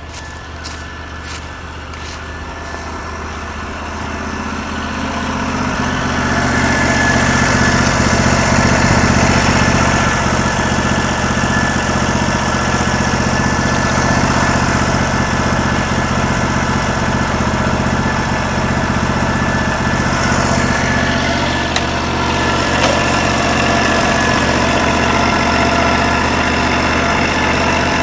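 Norwood LM29 portable bandsaw mill's 16 hp engine running. It gets louder over the first six seconds as it is throttled up, then runs steady with the band blade cutting through the log.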